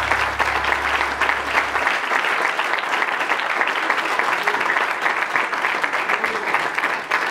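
A church congregation applauding, a steady dense clapping. A low held note from the music stops about two seconds in.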